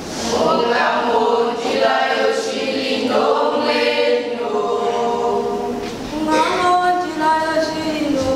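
Mixed choir of teenage boys and girls singing a cappella in harmony, with long held notes.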